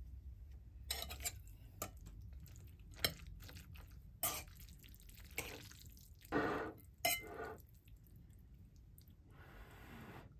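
Metal chopsticks clinking against a ceramic bowl as they stir and lift saucy noodles: a string of separate light taps, with a longer wet, squelchy stretch a little past the middle as a mound of noodles is pulled up.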